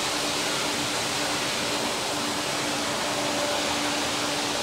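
Montana Crystal Rock ski-grinding machine running a wet finishing pass: a steady rush of grinding and water spray inside the enclosure, with a faint low hum that keeps coming and going.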